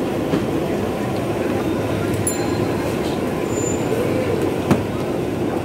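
Steady roar of a street-food stall's gas burners under the griddle and frying wok, mixed with street noise. About three-quarters of the way through comes a single sharp metal tap, a spatula against the iron griddle.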